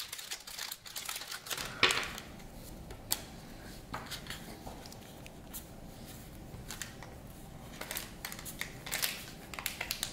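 A foil trading-card booster pack's wrapper crinkling as it is opened, then the playing cards being handled and flicked through, with soft scattered clicks of card on card. The loudest crinkle comes about two seconds in.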